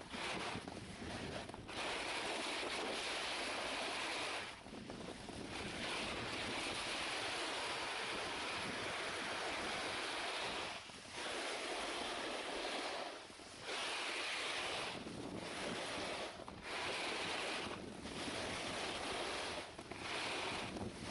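Wind rushing over the camera's microphone as it moves fast across the snow, a steady hiss that dips briefly several times.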